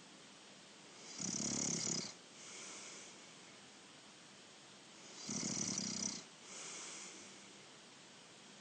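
A sleeping person snoring: two loud snores about four seconds apart, each followed by a softer breath out.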